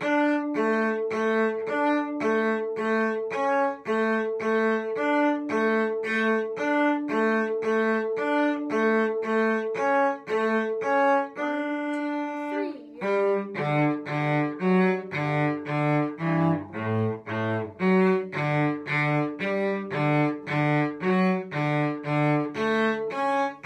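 Cello playing a beginner harmony part in short, separate bowed notes at a steady pulse of about two notes a second, opening on high D. About halfway through, the line drops to lower notes and moves more.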